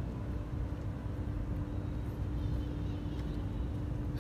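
Steady low rumble of open-air city background noise, with a constant hum running under it.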